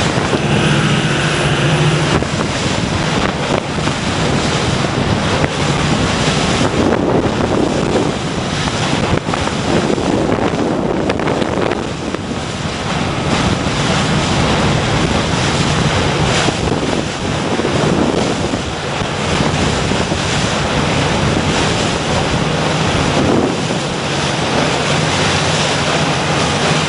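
Wind buffeting the microphone over the steady drone of a boat's engine, with water rushing along the hull as the boat cruises.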